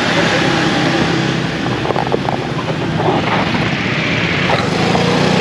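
Motor scooters riding past close by on a town street: a steady engine drone over general traffic noise, swelling again near the end.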